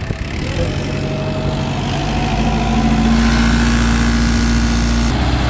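A 65 HP tractor's diesel engine running under load, driving an 8-foot Maschio rotavator through hard black soil. The revs climb over the first couple of seconds, then hold steady.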